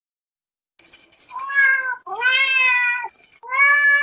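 A domestic cat meowing three times, long meows that rise and then fall in pitch; the last runs on past the end. Before and during the first meow there is a high, rapidly flickering shimmer.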